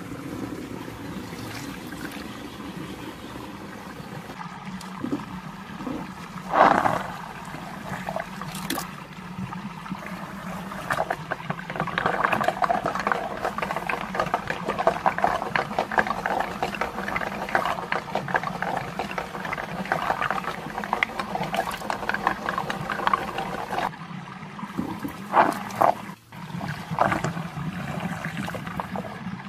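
Water churning and gurgling in a draining whirlpool vortex, louder through the middle, with a couple of sudden louder sounds about a quarter of the way in and near the end.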